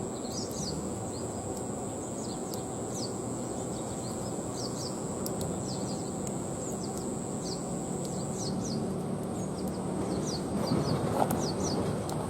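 Outdoor natural ambience: short, high downward chirps repeating in small groups over a steady high-pitched hum and a low, even background rush.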